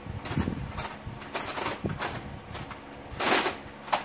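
Scattered clinks and knocks of metal tools and parts being handled at a workbench, with a louder scrape a little over three seconds in and a sharp click near the end.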